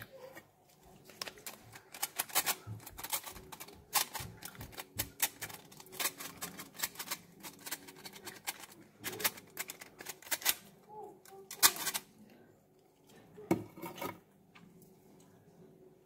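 Quick, irregular tapping and clicking of a powdered-sugar duster being knocked and shaken over a tray of muffins to sprinkle them with sugar. The taps come thick for most of the time, then thin out to a few near the end.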